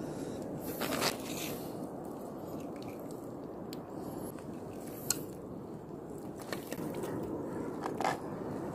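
Hands scraping and squelching through wet sand and seagrass in shallow water while picking up small sikad-sikad sea snails, under a steady low noise. A few sharp clicks come about a second in, midway and near the end, the last as the gathered shells are held in the hand.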